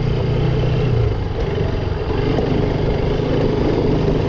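Bajaj Pulsar RS200 motorcycle's single-cylinder engine running steadily.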